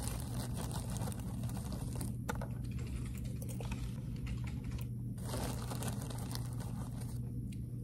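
Clear plastic bag of popcorn crinkling and rustling as a hand reaches in among the kernels: many small irregular crackling clicks over a steady low hum.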